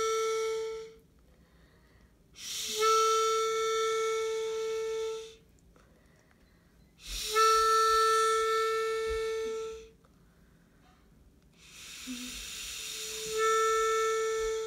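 Harmonica sounding one long held note, repeated at the same pitch about every four to five seconds with short silent gaps between, in imitation of a war trumpet call. The last note starts softly and then swells louder.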